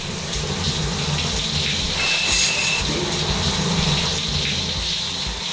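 Shower spray running steadily, water rushing and splashing onto a smartphone held in the hands under the jet.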